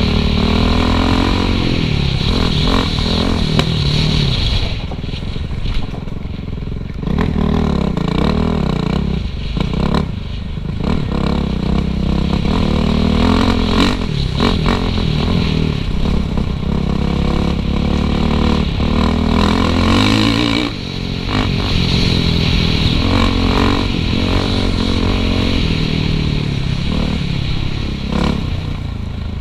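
Suzuki RM-Z450 four-stroke single-cylinder dirt bike engine, heard from on the bike, revving up and down as the throttle is rolled on and off along a trail. It eases off briefly a few times, about five, ten and twenty seconds in, with clattering from the rough ground.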